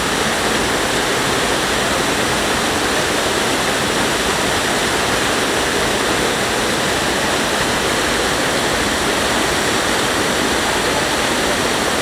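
Waterfall pouring over a rock ledge into a rocky pool: a steady rush of falling water with no let-up, the flow running high after a week of heavy rain.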